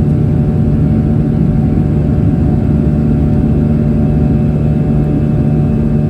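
Boeing 737-800's CFM56-7B turbofan engine at climb power, heard inside the cabin beside the engine: a loud, steady drone with several steady low tones over a rumble.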